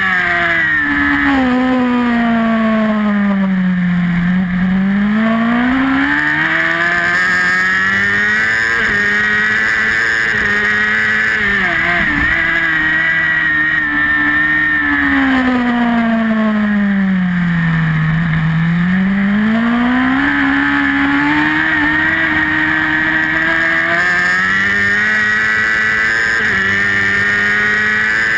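Racing superbike engine at high revs, heard onboard: twice its pitch drops as the bike slows for a corner, then climbs back up as it accelerates out. A steady rush of wind noise runs underneath.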